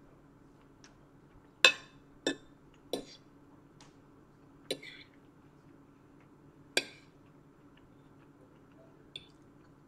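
A metal fork clinking against a ceramic plate as pasta is picked up: about six short, sharp clinks a second or two apart, over a faint steady low hum.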